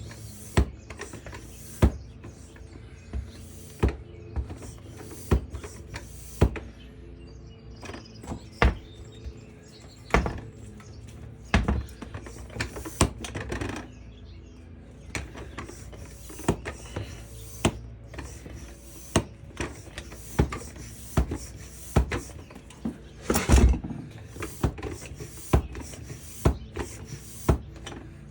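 Hand bike pump worked in steady strokes, about one a second, each ending in a sharp knock, inflating a new inner tube inside a lawn mower tire while the bead seats.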